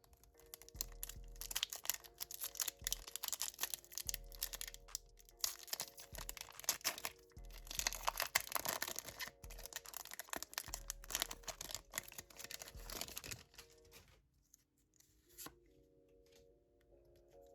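Foil wrappers of Pokémon booster packs being torn open and crinkled, a dense crackling that goes on for about thirteen seconds and then gives way to quieter card handling. Background music plays throughout.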